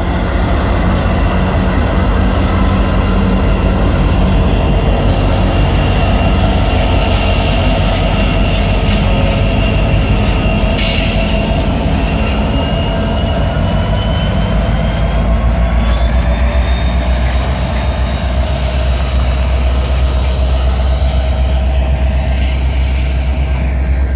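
Freight train passing close by. Its diesel locomotives, a BNSF GE Dash 9 leading, rumble past in the first half, followed by hopper cars rolling over the rails with a steady low rumble and a thin, slowly wavering high squeal from the wheels.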